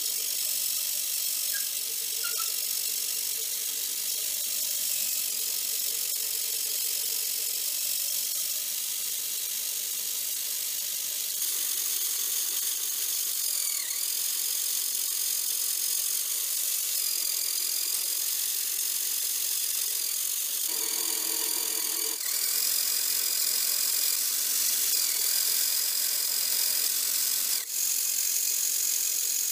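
Small electric motor driving a homemade PVC model gearbox and drivetrain, running steadily with a high whine and gear rattle. The sound steps up twice, about a third and two-thirds of the way through, as the gears are shifted.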